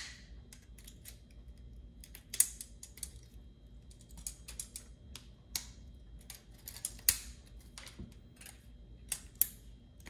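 Irregular sharp clicks, creaks and snaps of thin sheet metal and plastic as an electric toothbrush's motor frame is twisted apart with a hand tool, with louder cracks about two and a half seconds in and again about seven seconds in as its spot welds give way.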